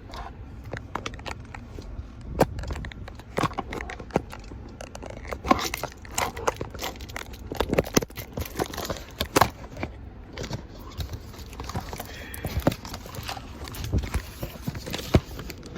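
Close-up handling noises: an irregular run of clicks, taps and knocks with rustling and crinkling between them, as objects and food wrapping are handled by hand.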